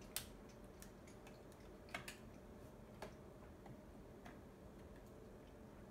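Near silence with a few faint, sharp clicks scattered through, the clearest just after the start and about two seconds in.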